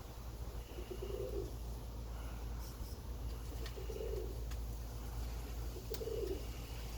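Domestic pigeon cooing three times, each coo a short low call about two and a half seconds apart, over a steady low rumble of wind on the microphone.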